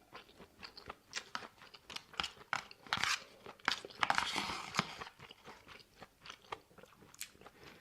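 A person chewing and biting food close to the microphone, with a quick run of crisp crunches, several a second.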